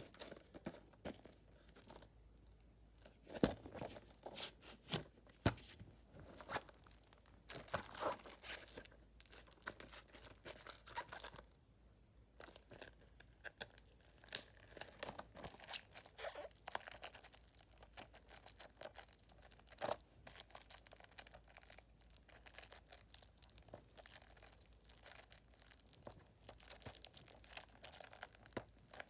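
Plastic wrapping on a disc case being torn and crinkled. First come a few scattered handling clicks, then continuous crackling from about six seconds in, with a brief pause near twelve seconds.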